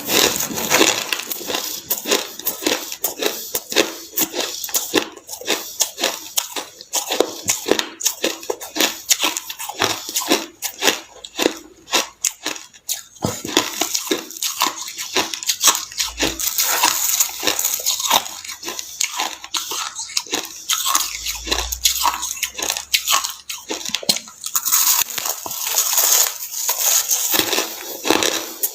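Close crunching of white snow ice being bitten and chewed: a dense, rapid stream of crackling crunches with no letup.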